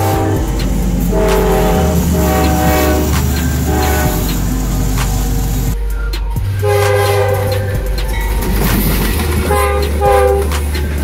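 Background music with sustained chords over a stepping bass and a steady beat, with a brief break about six seconds in.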